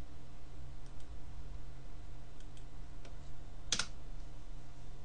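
A few faint computer keyboard and mouse clicks, with one sharper, louder click about three-quarters of the way through, over a steady low hum.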